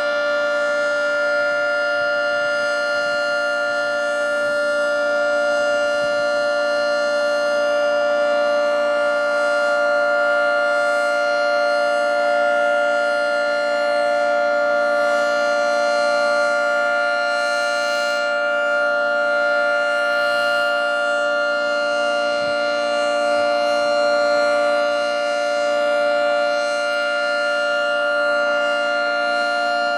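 Federal 3T22 three-tone rotating outdoor warning siren sounding a steady chord at full speed during a test, its level swelling and easing slightly as it goes.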